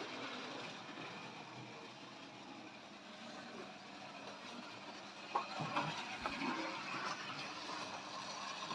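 Tri-ang model railway train running around the track, a faint steady rattle of its wheels on the rails with a few louder clicks about five to six and a half seconds in.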